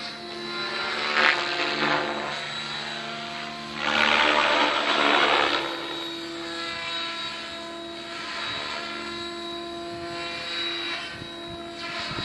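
Mikado Logo 600 SX electric radio-controlled helicopter in flight: a steady whine from its motor and rotor. The sound swells briefly about a second in, then grows much louder for about a second and a half about four seconds in before settling back.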